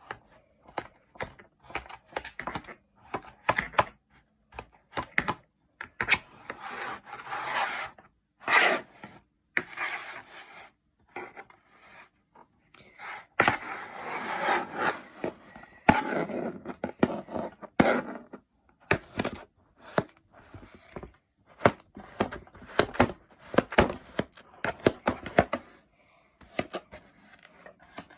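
Kinetic sand being sliced, with many short, sharp cuts and taps. Twice it is squeezed and crumbled, giving longer grainy rustles: a few seconds in and again around the middle.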